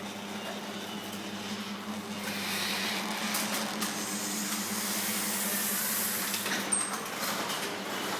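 Garage door opener motor running with a steady hum while the door rolls along its track. The rolling grows louder in the middle, and there is a sharp click near the end. The opener is cycling the door up and down on its own, a fault the owner can't explain.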